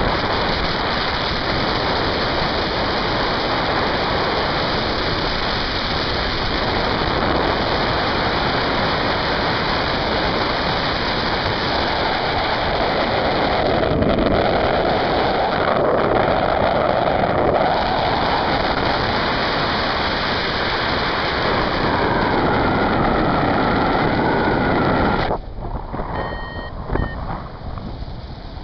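Wind rushing over the camera microphone of a paraglider in flight, loud and steady. About 25 seconds in it drops away suddenly, and near the end a paragliding variometer beeps in short tones that step up in pitch.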